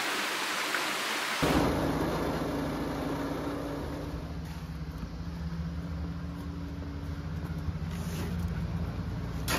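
Small gasoline engine of a cement mixer running at a steady speed, a low even hum that starts abruptly about a second and a half in, after a brief hiss.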